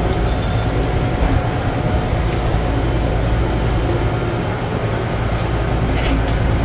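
A steady low machine hum and rumble, even throughout.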